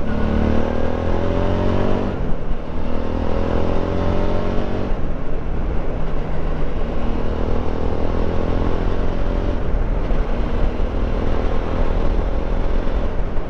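Motorcycle engine accelerating through the gears, its pitch climbing and dropping back at two upshifts in the first few seconds, then running on at a steadier speed. Heavy wind rumble on the microphone runs under it.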